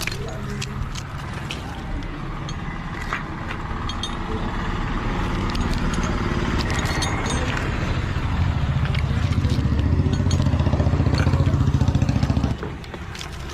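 Chainsaw engine running steadily, building up as it works and loudest for the last few seconds, then dropping off abruptly about a second before the end, with scattered knocks and clicks of wood around it.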